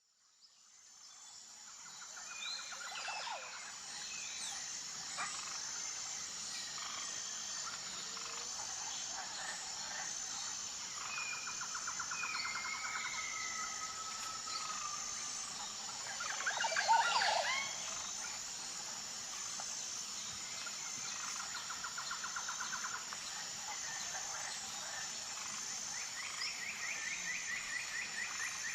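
Forest ambience: a steady, high, finely pulsing insect chorus with birds calling and trilling over it, fading in at the start. A louder burst of several calls comes about two-thirds of the way through.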